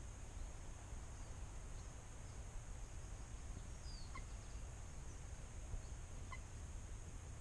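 Duck on a garden pond giving two short, faint quacks, about four and six seconds in, over a steady low rumble of outdoor background noise.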